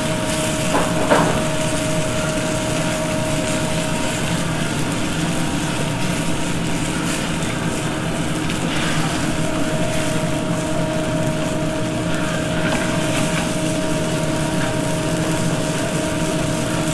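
Steady roar of a commercial gas range's open burners and kitchen ventilation, with chicken and red onion sizzling in a sauté pan. Metal tongs click against the pan a couple of times about a second in.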